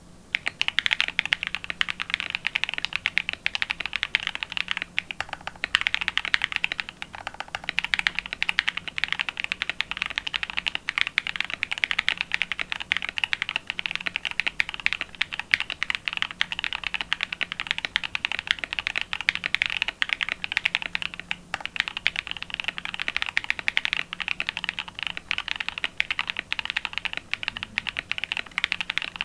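Fast, continuous typing on a mechanical keyboard with lubed NovelKeys Cream linear switches in an aluminium plate and PBT keycaps, a dense stream of keystroke clacks with a few brief pauses.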